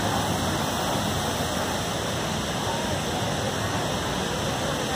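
Steady rush of the 9/11 Memorial reflecting pool's waterfalls, water pouring down the granite walls into the pool in an even, unbroken roar of noise.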